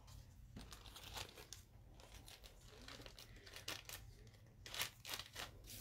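Faint crinkling and rustling of a small clear plastic bag being handled as a wristband is packed into it, in short irregular crackles.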